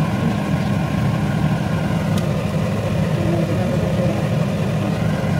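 A steady low hum runs throughout, with a faint tick about two seconds in.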